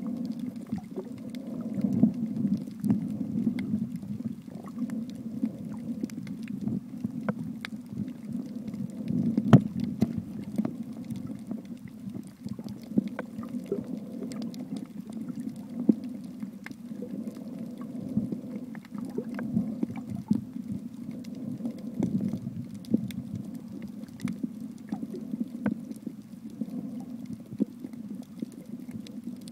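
Water heard through a submerged camera: a muffled low rumble with scattered sharp clicks and crackles, and a few louder knocks.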